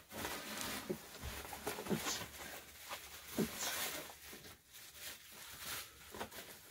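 Hands rustling and crinkling packing material and plastic bubble wrap while unpacking a cardboard shipping box, soft and uneven, with a few light taps.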